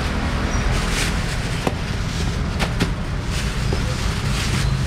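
Steady outdoor background rumble and hiss, with a few short sharp clicks and rustles, such as plastic bags and fish being handled at a market stall.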